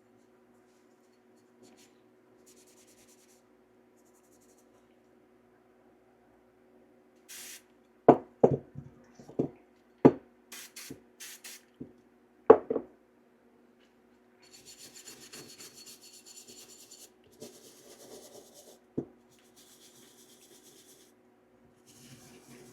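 A handful of sharp clicks and knocks from handling the disassembled 1911 pistol's parts, then a plastic brush scrubbing the slide with CLP in short bursts of scratchy strokes.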